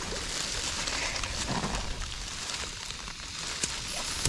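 Camping gas stove hissing as gas flows from the opened valve, with a few small clicks, then lighting with a sudden loud whoomp at the very end. The gas has been left to run a little too long before catching.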